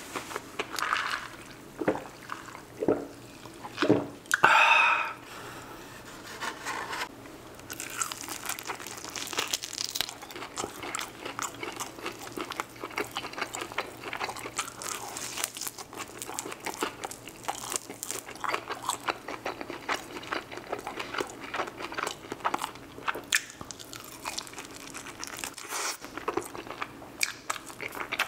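Close-miked chewing and biting of a bone-in chicken wing: a steady run of wet smacks and small crunches. A short, loud mouth noise comes about four and a half seconds in.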